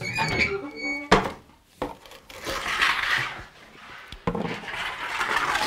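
A bread peel scraping and knocking on the hearth of a stone bread oven as loaves are slid in: a few sharp knocks and two longer scrapes, the second near the end.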